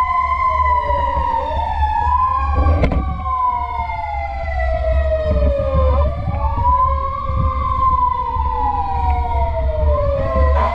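Fire truck sirens wailing, at least two sirens sweeping slowly up and down in pitch out of step with each other, each sweep taking several seconds, over a steady low rumble.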